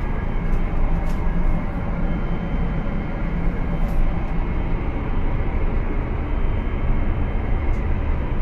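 Steady rumble and rush of a Boeing 777-300ER's cabin noise in cruise, heard inside the lavatory, with a few faint clicks.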